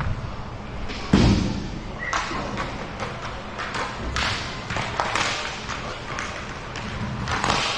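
Hockey play: a loud thump about a second in, then a run of sharp clacks and knocks from sticks and puck over steady rink noise.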